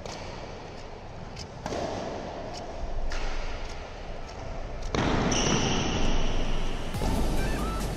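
Badminton rally: sharp racket hits on the shuttlecock, mixed with players' footsteps and a brief shoe squeak on the court floor. Background music comes in near the end.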